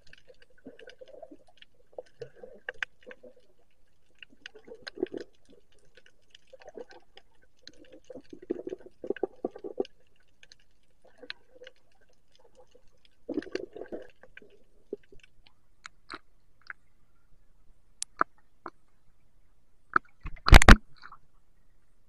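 Muffled underwater sound through a camera's waterproof housing: low rumbling patches come and go, with scattered sharp clicks. About twenty seconds in comes a loud, brief splash as the camera breaks the water's surface.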